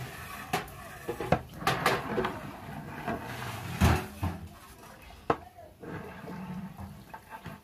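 A long-handled metal ladle stirring thick khichuri in a large aluminium cooking pot, knocking and scraping against the pot's metal side at irregular intervals. The loudest knock comes about four seconds in.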